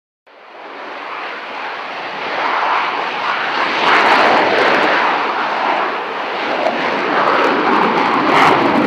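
Avro Vulcan XH558's four Rolls-Royce Olympus turbojets at high power as the delta bomber climbs away, a loud, rushing jet noise that begins suddenly, swells over the first few seconds and then holds.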